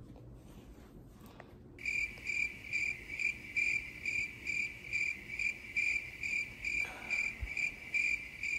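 Electronic alarm beeping: a high, steady beep repeating about three times a second, which starts suddenly about two seconds in and then stops abruptly.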